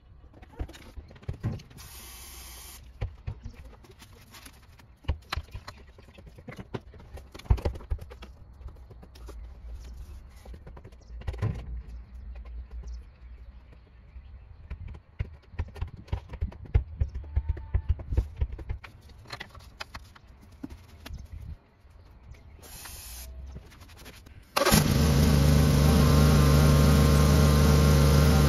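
Clicks and knocks of hand work on the engine, then near the end the Peugeot 406's petrol engine, freshly refilled with oil, starts and runs at a steady idle, much louder than the handling noises.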